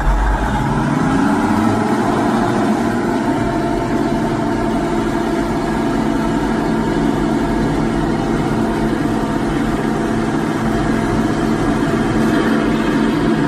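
Komatsu D375-5 dozer's six-cylinder diesel engine speeding up over the first second or two, then running steadily at the higher speed.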